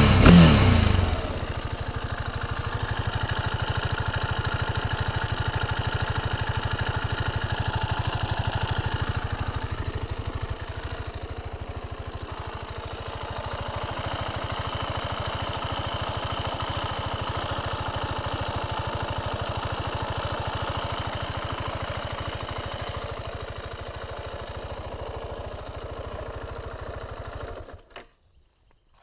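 KTM 690 Duke's single-cylinder engine idling steadily through its stock exhaust after a rev dies away in the first second. The idle cuts off near the end.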